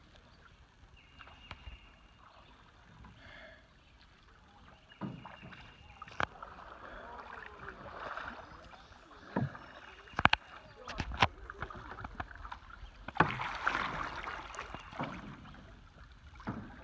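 Canoe paddling on a slow river: paddle strokes splashing and dripping in the water, with several sharp knocks of a paddle against the canoe's hull.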